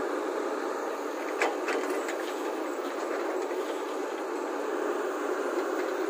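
Volvo crawler excavator's diesel engine and hydraulics running steadily as its bucket dumps a load of red earth and stones into a tipper truck's steel body, with a short burst of clattering impacts about a second and a half in.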